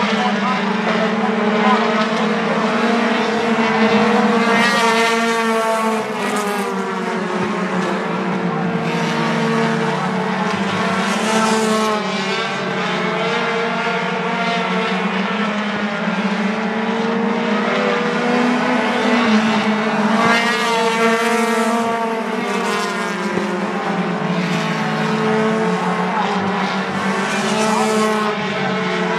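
Four-cylinder Lightning 4 race cars running hard in a close pack on a short oval. Several engines rise and fall in pitch together as they lap, and the sound swells each time the cars pass.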